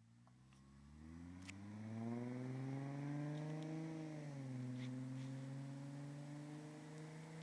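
Mercedes-Benz C230 V6 with a resonator-deleted custom exhaust revving: the exhaust note climbs in pitch over about two seconds, holds, dips briefly near the middle, then holds steady again.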